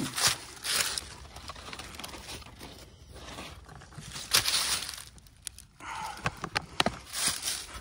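Brown paper bag crinkling and rustling in a hand in several bursts as it is lit and pushed into a fire pit, with a few sharp clicks near the end.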